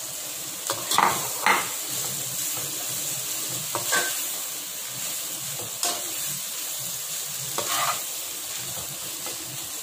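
Boiled noodles sizzling in hot oil in a kadai as they are stirred and tossed with a slotted spatula, with a few short strokes of the spatula against the pan.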